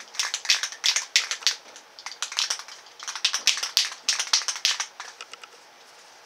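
Aerosol spray-paint can being shaken, its mixing ball rattling in quick clattering runs, with a short break about two seconds in, thinning out after about five seconds.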